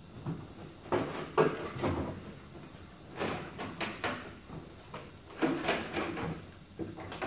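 Irregular knocks, clicks and scrapes of 1/10-scale RC truck bodies and parts being handled and fitted on a workbench, with sharper knocks about a second and a half in and again about five and a half seconds in.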